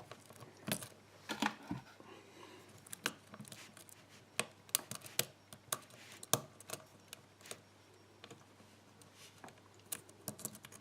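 Lock pick and tension wrench working a pin tumbler euro-cylinder lock: faint, irregular metallic clicks and ticks as the pins are picked one by one.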